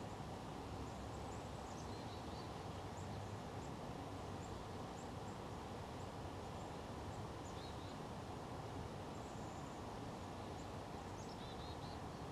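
Outdoor ambience: a steady low background noise, with small birds giving short, high chirps here and there and a quick cluster of them near the end.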